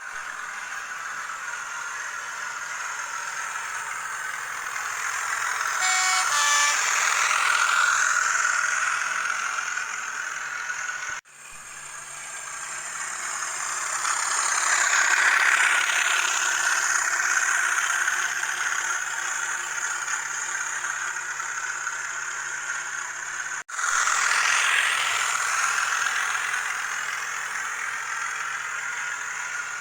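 Sound-fitted N gauge model of a Class 37 diesel locomotive running, its Hornby TTS sound decoder playing diesel engine sound through the model's small speaker. The engine sound swells louder and fades back, and breaks off for an instant twice.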